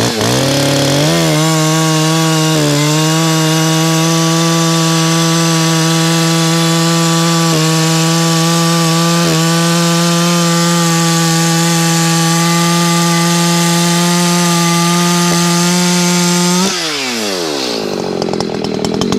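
Two-stroke Echo chainsaw with a freshly, evenly sharpened chain revving up about a second in and cutting through a large log at a steady full throttle for about fifteen seconds, then dropping back to idle near the end as the cut finishes.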